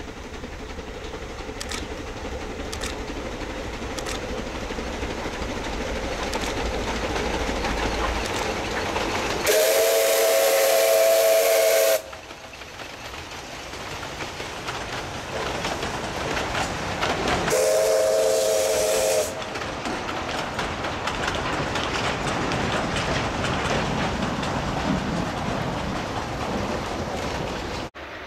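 Narrow-gauge C2 steam locomotive approaching and passing with its train of coaches, the running noise growing louder as it nears. Its steam whistle sounds twice: a long blast about ten seconds in and a shorter one about eight seconds later.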